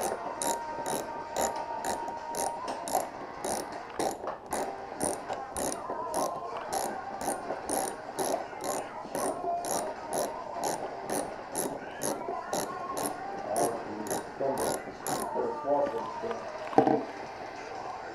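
Socket ratchet wrench clicking in quick runs as bolts are worked on a dirt bike, with a sharp metallic clack near the end. An even high tick, about twice a second, runs underneath.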